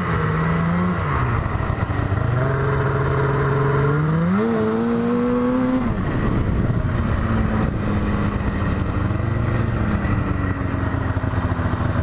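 Yamaha snowmobile engine running under way, with a steady rushing noise beneath it. Its pitch holds, climbs with throttle about four seconds in, drops back about six seconds in, then stays lower and slowly sinks as the machine slows.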